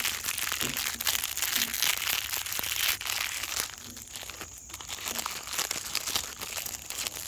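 A bag of popcorn crinkling and rustling as it is handled, dense for the first few seconds and then quieter with scattered crackles.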